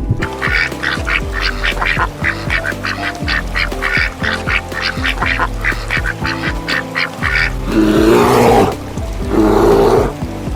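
Ducks calling: a quick run of short, high calls, about three a second, then two loud, harsh quacks near the end. Background music plays under them.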